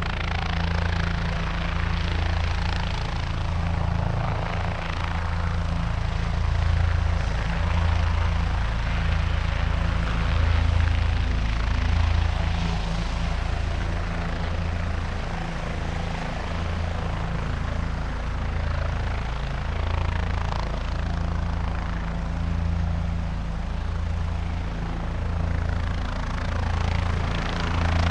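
Helicopter running at speed, engine and main rotor together: a steady low throb under a rushing noise, swelling and easing slowly.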